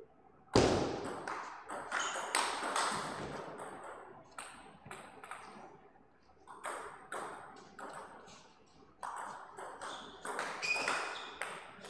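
Table tennis ball clicking off paddles and the table in fast rallies, a series of sharp pocks in several runs with short gaps, the loudest about half a second in.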